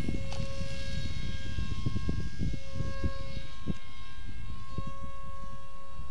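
Electric motor and pusher propeller of a Beta 1400 (Bixler / Sky Surfer) RC plane whining at a steady pitch in flight, briefly dropping out a few times, over gusty wind rumble on the microphone.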